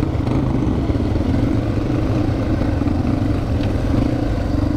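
Yamaha dirt bike engine running steadily as the bike rolls slowly, heard close up from the rider's bike, with other dirt bike engines around it.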